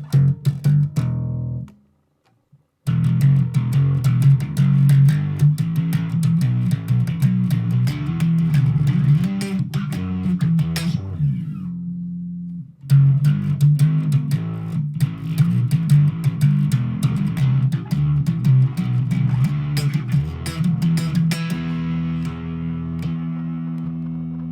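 Bass guitar playing a run of plucked notes. It stops for about a second shortly after the start and pauses briefly about twelve seconds in, then ends on held, ringing notes.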